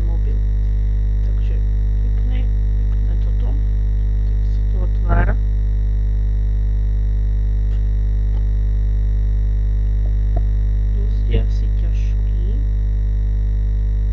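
A loud, steady electrical hum with a stack of overtones, unchanging throughout. A few brief faint sounds rise above it near the start, about five seconds in and about eleven seconds in.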